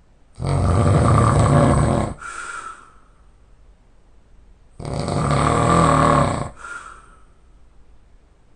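A man snoring loudly in his sleep: two long snores about four seconds apart, each followed by a shorter, softer breath out.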